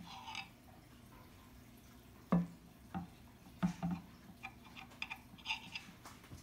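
A metal cake server and knife clinking and tapping against a glass serving plate as a slice of chocoflan is cut and worked loose: a few short, light knocks, the loudest a little over two seconds in.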